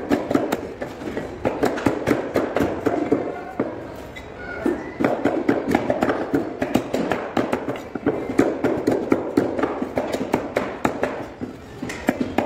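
Cleavers chopping chicken pieces on wooden log chopping blocks: rapid, repeated sharp thuds, several a second from more than one butcher, with brief pauses.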